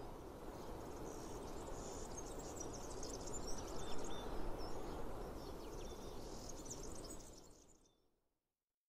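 Rural summer ambience: a steady low background hiss, with small birds chirping and insects calling high above it. It all fades out about a second before the end.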